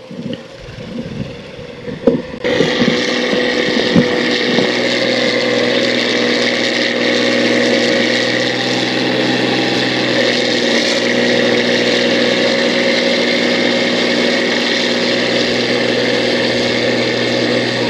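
Rice combine harvester's engine and machinery running loud and steady, coming in abruptly about two and a half seconds in after a few knocks, with another sharp knock shortly after.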